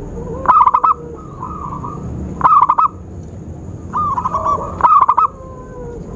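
Zebra doves (perkutut) cooing in a lure call: short phrases of quick, clipped notes, repeated about once a second, some louder than others.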